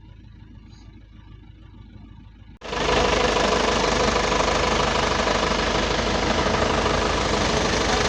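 A low rumble, then after an abrupt cut about two and a half seconds in, a vehicle engine running loud and steady with a heavy noisy rush over it.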